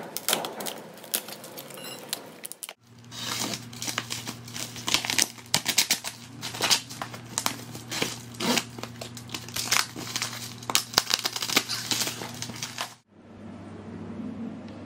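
Black plastic stretch wrap on a parcel crinkling and tearing as it is cut and pulled open, a rapid run of sharp crackles. It stops abruptly about 13 seconds in, leaving quieter room sound.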